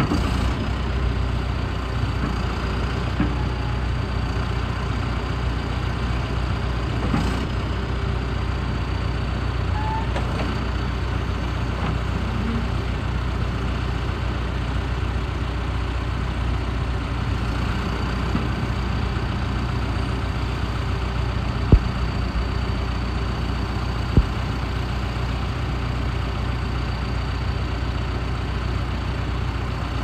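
A John Deere 310K backhoe loader's diesel engine runs steadily while the backhoe boom and bucket are worked hydraulically, with a faint high steady whine over it. Two sharp knocks come about two-thirds of the way through.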